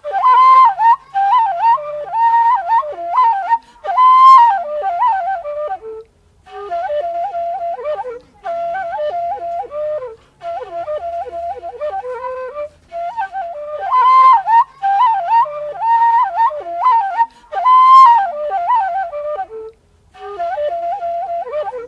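Instrumental opening music: a single ornamented wind melody that repeats its phrase, broken by a few short pauses.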